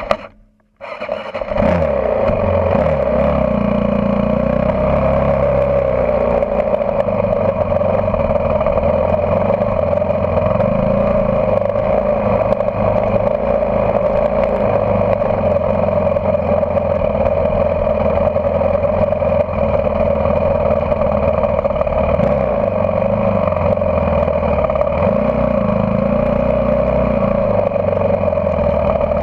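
Off-road vehicle engine heard from on board while driving a dirt trail, running steadily with its pitch rising and falling as the throttle changes. It picks up about a second in, after a brief drop-out.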